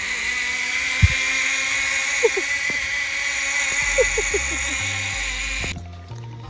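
Zip line trolley pulley running along a steel cable: a steady high whir that cuts off suddenly near the end. Low music notes come in during the second half.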